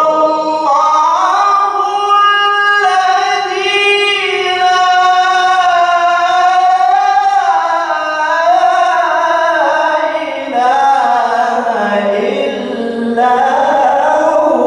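A male qari reciting the Quran in a melodic, high-pitched chant into a microphone, drawing out long ornamented phrases. The pitch slides slowly down over several seconds, with two brief breaks, and climbs again near the end.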